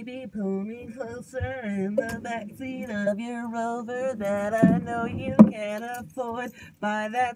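A woman singing unaccompanied in phrases, with held, wavering notes and short pauses between lines, inside a small car cabin.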